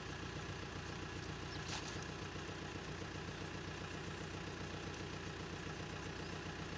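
A tractor's diesel engine runs steadily while it pulls a rear rotary tiller through waterlogged mud. There is a brief click a little under two seconds in.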